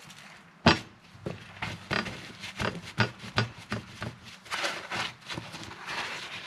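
Kitchen prep clatter: a sharp knock, then a run of quick knocks and taps of utensils and containers, with rustling near the end.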